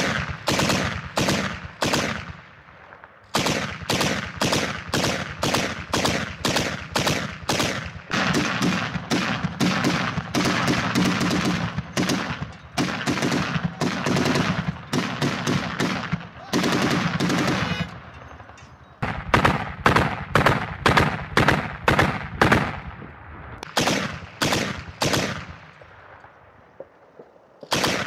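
Truck-mounted heavy machine gun firing in long strings of shots, a few shots a second, each shot with a short echo. The firing pauses briefly about three seconds in, again around eighteen seconds in and near the end.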